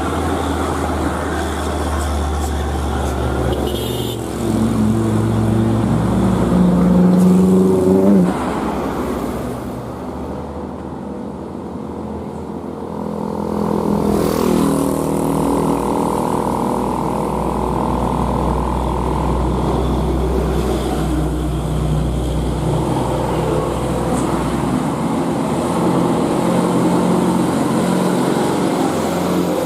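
Heavy diesel truck engine working hard, its pitch climbing for a few seconds and then breaking off sharply about eight seconds in, as at a gear change. It runs quieter for a few seconds, then comes back with a falling pitch and settles into a steady, loud running.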